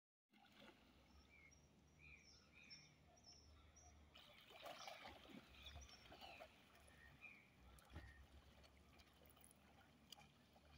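Very faint outdoor ambience: a bird giving short high chirps over and over in the first few seconds, and faint splashing from a swimmer's freestyle strokes, loudest about halfway through, over a low hum.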